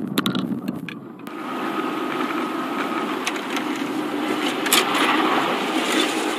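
Car driving, its engine and road noise heard as a steady hum from inside the cabin, with a short sharp click about five seconds in.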